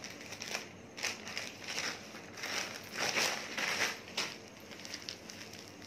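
Plastic courier mailer and inner poly packet crinkling and rustling as they are handled and torn open by hand, in irregular bursts with the loudest rustling about halfway through.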